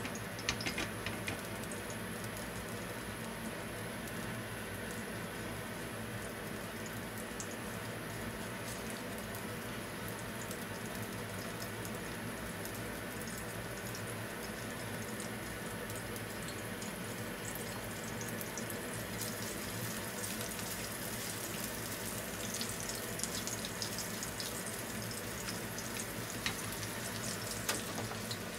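Garlic sizzling gently in a pool of oil in a tilted stainless steel frying pan over a low gas flame: a steady soft bubbling hiss, with small crackles that come more often over the last third, as the garlic slowly infuses the oil. A few light clicks near the start and again near the end.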